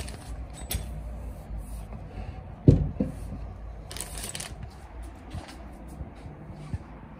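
Red plastic pouch crinkling as it is handled, in short rustles, with two dull thumps close together near the middle, the loudest sounds, as it is pressed down onto a mattress.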